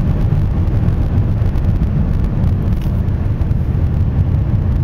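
A car driving at steady speed, heard from inside the cabin: an even, low rumble of road and engine noise.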